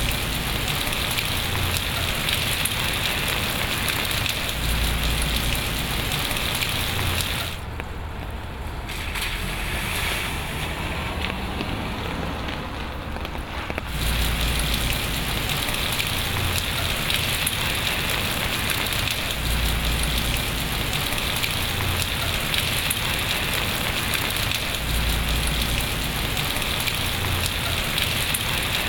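Rain falling onto a water surface, a steady dense patter and hiss, with occasional low rumbles. About a quarter of the way in it turns quieter and duller for several seconds, then comes back at full strength.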